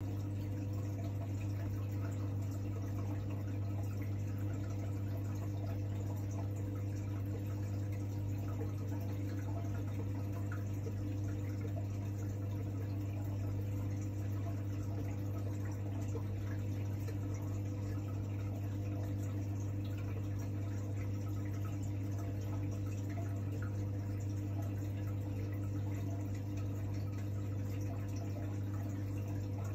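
Steady low hum with a faint watery hiss from a reef aquarium's running pumps and equipment.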